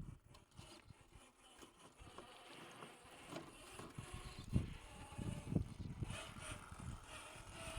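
Electric 1/7 scale RC crawler truck driving over rough, rocky ground: its motor and drivetrain run faintly under irregular knocks and scrapes of tyres and chassis on stone, with the strongest knocks about halfway through.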